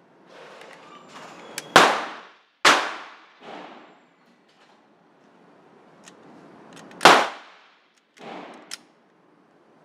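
Glock 17 9mm pistol firing three loud shots, two in quick succession about two seconds in and a third after a pause of about four seconds, each ringing out in the range's echo. Fainter bangs fall in between.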